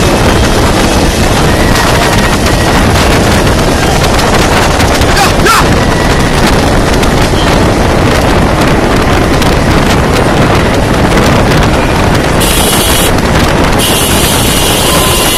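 Loud, steady wind buffeting the microphone, with the engine and road noise of a vehicle moving at speed underneath.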